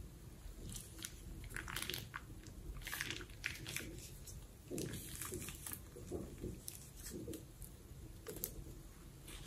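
Plastic piping bag squeezed and crinkled by hand as thick pink slime base is pressed out of it: irregular sticky crackles and soft squelches.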